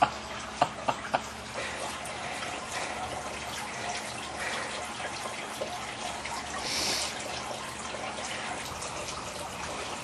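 Steady trickling, splashing water, with a few short sharp sounds in the first second or so.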